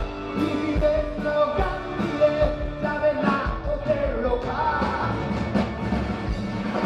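Live rock band playing with a singer: drums keep a steady beat under a sung melody.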